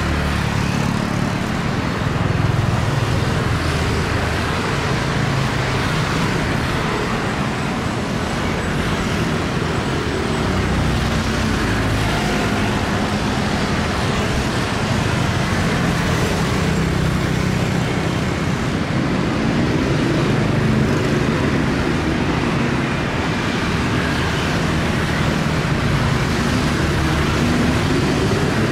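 Busy city street traffic: a steady mix of motorbike and car engines passing, with engine notes rising and falling about twenty seconds in and again near the end.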